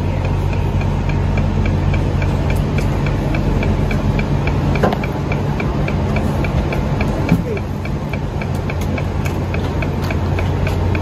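Steady low hum of a Eurostar train standing at the platform with its doors open, with a fast, regular ticking and a few faint voices.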